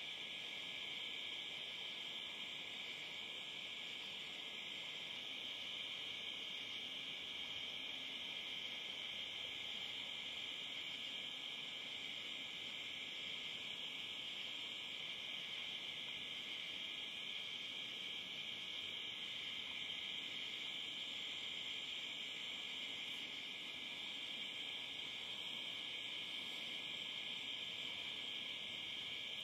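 Steady chorus of night-singing insects, a continuous high-pitched drone that does not let up.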